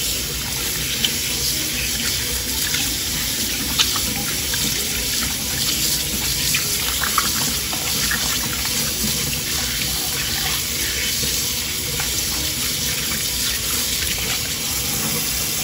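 Kitchen tap running steadily into a stainless-steel colander in the sink while hands rub and rinse boiled goat tripe under the cold water, with small splashes and a few light knocks.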